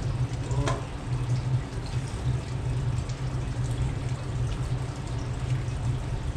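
Aquarium filters running: steady trickling of water over a constant low hum.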